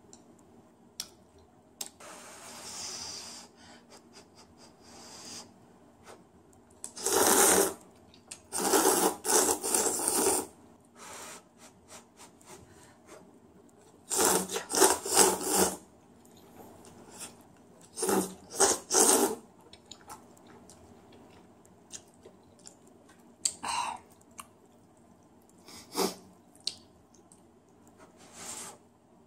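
Instant ramyun noodles being slurped off chopsticks in loud bursts of one to two seconds, four big ones and a couple of smaller ones.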